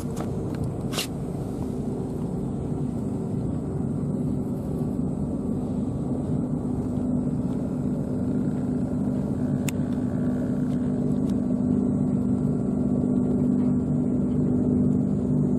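Steady low engine drone with a humming tone, slowly growing louder; a brief sharp click about a second in.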